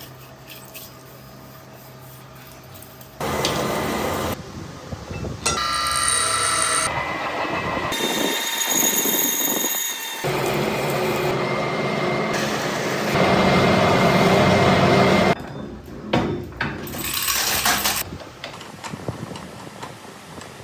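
Manual metal lathe running and cutting metal, heard as a string of short clips that change abruptly every second or few, some with high ringing tones.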